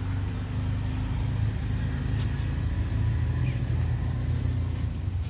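Steady low rumble of a motor vehicle's engine running.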